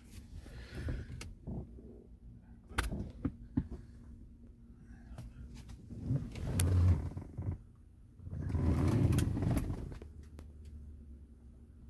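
Low road and engine rumble inside the cabin of a moving 2014 Hyundai Tucson, with scattered knocks and clicks from handling. The rumble swells twice, about six seconds in and again about nine seconds in.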